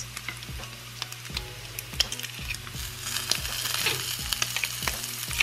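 Diced pancetta frying in a nonstick pan, sizzling with scattered small pops and crackles; the sizzle grows brighter and busier about three seconds in.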